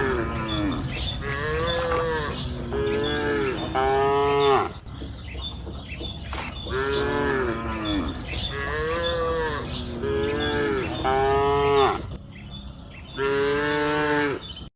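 Cattle mooing, one call after another, each about a second long with short pauses between them, the pitch rising and falling within each call.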